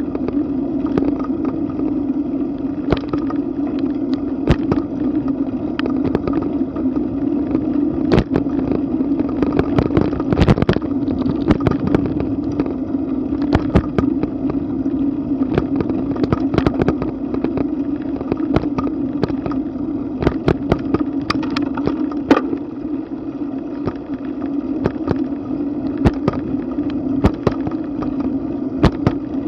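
Riding noise of a bicycle rolling on an asphalt street at about 11 mph, heard from a bike-mounted camera: a steady drone with frequent sharp clicks and rattles all through.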